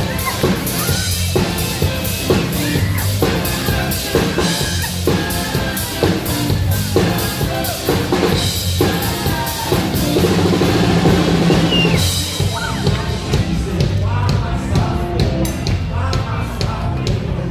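Live band playing an instrumental passage, with a drum kit keeping a steady beat under bass and other pitched instruments.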